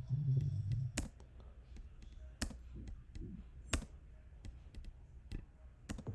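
Scattered sharp clicks of a computer mouse or trackpad, about six in all, the loudest near one, two and a half and nearly four seconds in. In the first second a short fragment of low bass from the track plays back.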